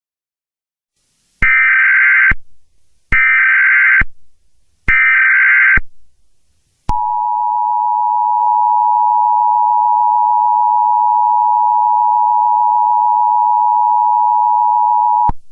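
Emergency Alert System tones: three short bursts of digital header tones, each about a second long, then the steady two-tone EAS attention signal for about eight seconds, cutting off sharply near the end.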